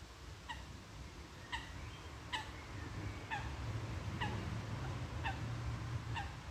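A goose calling repeatedly, seven short honks about a second apart, each dropping slightly in pitch at its end. A low rumble sits beneath the calls in the second half.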